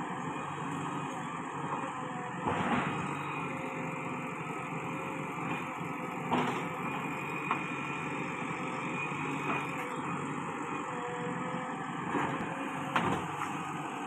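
JCB 3DX backhoe loader's diesel engine running steadily under load while the machine digs, with a few sharp knocks from the working arm and bucket.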